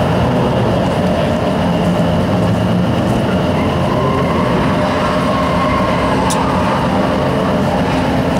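Drift cars' engines running hard on the course, a loud, steady drone with a pitch that rises and falls about halfway through, and a single sharp click about six seconds in.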